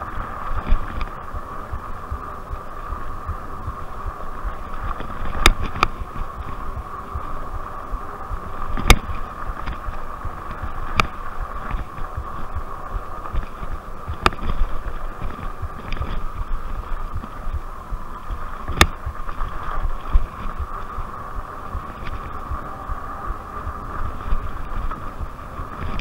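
RadRover e-bike's 750 W hub motor whining steadily under power, over the low rumble of fat tyres on a dirt trail and wind on the microphone. Several sharp knocks come as the bike jolts over bumps.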